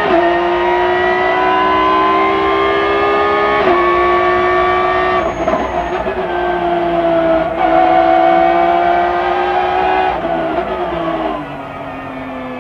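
In-car sound of the 2006 BMW M3 GT2 race car's engine running hard at high revs. Its pitch climbs slowly with a few brief gear changes, then the revs and loudness fall near the end as it slows.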